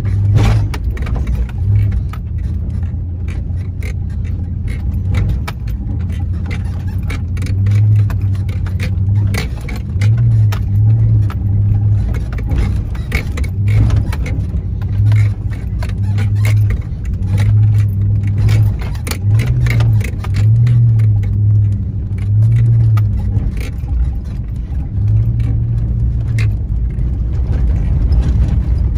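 Nissan Titan pickup's engine running under load in four-wheel-drive low, heard from inside the cab, its hum swelling and easing as it crawls over a rough rocky track. Frequent knocks, clatters and rattles from rocks under the tyres, the jolting suspension and loose things in the cab.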